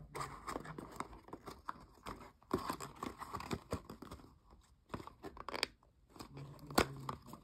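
Small cardboard Littlest Pet Shop blind box being handled and its top flaps pulled open: scraping, crinkling and light tearing of card, with a sharp click near the end.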